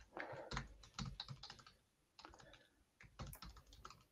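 Typing on a computer keyboard: two quick runs of keystrokes with a short pause between them, faint.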